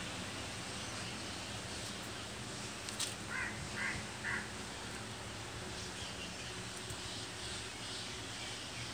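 A bird calls three short times in quick succession about three and a half seconds in, over a steady low background hum.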